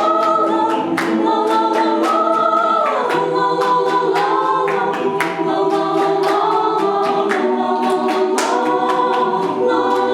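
A cappella choir singing a wordless piece, voices imitating instruments: sustained chords under crisp, rhythmic syllable attacks a few times a second.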